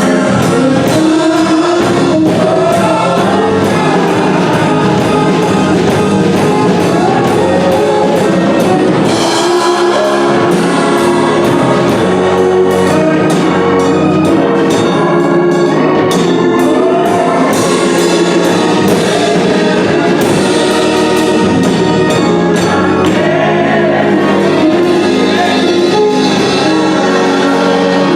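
A gospel choir singing with a band accompanying, drums keeping the beat.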